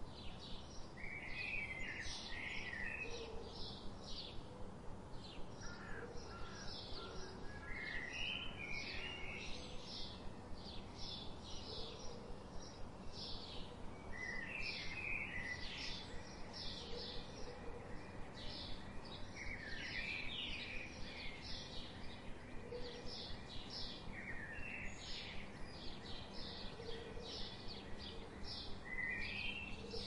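Birdsong: one bird chirping evenly a few times a second throughout, with short warbling phrases from other birds every few seconds, over a steady faint background hiss.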